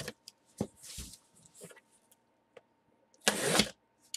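Cardboard shipping box being handled on a table after its tape is cut: scattered taps and rustles, then one loud scraping rustle of about half a second a little over three seconds in.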